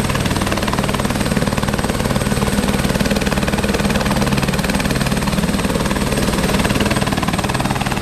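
Light turbine helicopter running on the ground at idle, its rotor turning: a steady high turbine whine over a rapid, even beat from the rotor blades.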